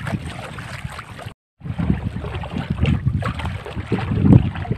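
Wind buffeting the microphone over the wash of water as a small wooden boat moves along a river, gusty and uneven, dropping out completely for a moment about a second and a half in.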